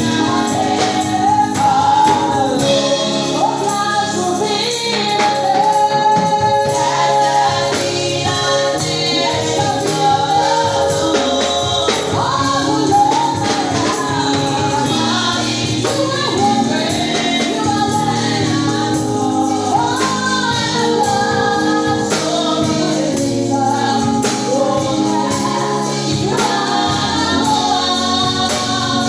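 A congregation and choir singing a gospel praise song with tambourine and a steady instrumental accompaniment.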